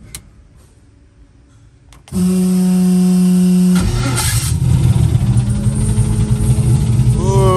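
Starter motor of a turbocharged Fox-body Mustang race car whining as it cranks for under two seconds, then the engine catches and runs rough and uneven, with a brief whine falling in pitch near the end. The engine's knock is taken for a rod bent by water compressed through a blown head gasket.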